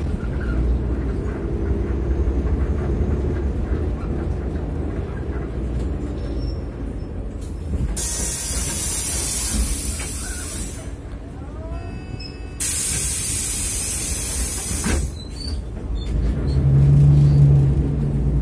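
Cabin sound of a Hyundai Global 900 CNG city bus, its engine running with a steady low drone that the uploader calls a strange engine sound. Two long bursts of compressed-air hiss come about eight and thirteen seconds in, and a louder low hum rises near the end.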